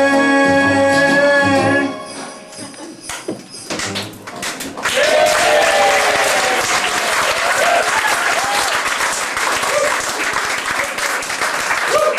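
A sung note held over a backing track ends about two seconds in. A few scattered claps follow, then from about five seconds in the audience breaks into sustained applause, with a few whoops and cheers.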